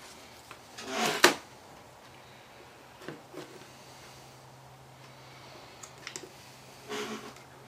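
Workbench handling noises: a loud, short clatter about a second in as the spool of solder is put down, then a few small clicks and a brief rustle as the wires on the jig are handled. A faint steady hum runs underneath.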